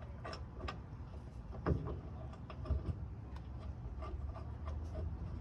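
Small irregular metal clicks and two louder knocks as a driveshaft flange bolt is threaded in by hand or hand tool, over a steady low hum.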